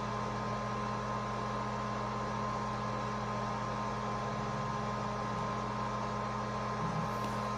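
Steady background hum with a hiss under it, a few fixed tones holding at an even level; nothing sudden stands out.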